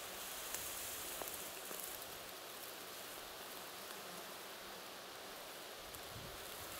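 Tall meadow grass rustling steadily, a soft even hiss with a few faint ticks.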